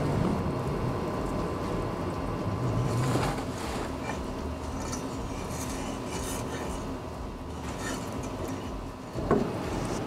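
Metal knocking and scraping as wood is shifted about in the firebox of a Central Boiler E-Classic 2300 outdoor wood boiler, with one sharper knock near the end. Underneath, the boiler's newly replaced draft blower runs with a steady hum.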